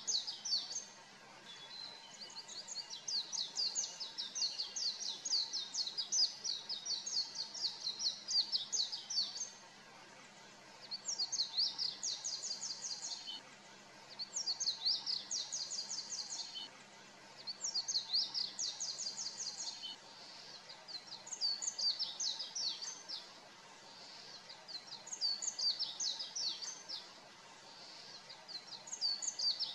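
Oriental white-eye (pleci) singing: phrases of rapid, high-pitched twittering notes, mostly two to three seconds long with short pauses between, and one longer run of about seven seconds near the start.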